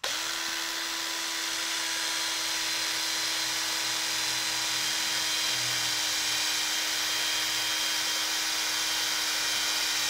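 Cordless drill running at a constant speed with a 4 mm bit, boring a hole through a speargun handle. The motor whine starts at once and holds one steady pitch throughout.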